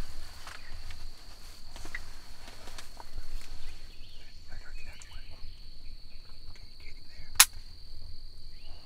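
A steady, high-pitched insect drone over quiet woodland background, with one sharp click about seven seconds in.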